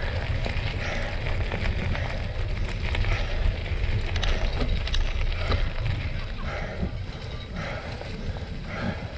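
Cyclocross bike being ridden on a wet, muddy course, heard from the rider's camera: a steady low wind rumble on the microphone over tyre and drivetrain noise, with a voice or hard breathing at times.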